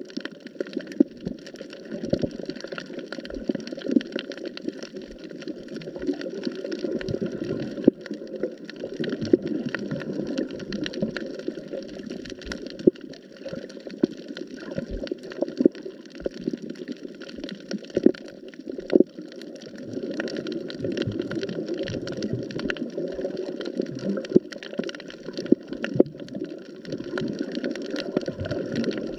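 Underwater ambience picked up by a camera underwater: a steady, muffled rush of water with frequent sharp clicks and crackles.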